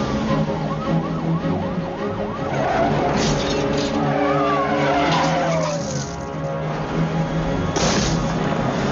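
Film car-chase soundtrack: a police car's siren wailing, tyres skidding and vehicles running, with sudden bursts of noise about three seconds in and near the end.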